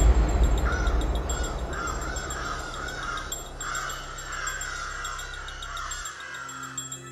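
A crow cawing in a quick run of short calls for about four seconds, over the low, fading tail of the music.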